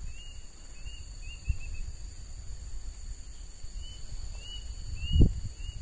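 Steady high-pitched insect drone with scattered short high chirps, over a low rumble; a single thump about five seconds in.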